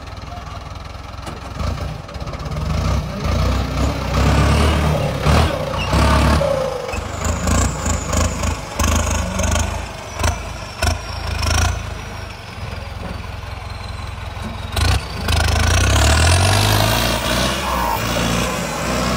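Ford 6810 tractor's turbocharged diesel engine running under load as it pulls a disc harrow through soil, rising and falling in level, with scattered sharp knocks.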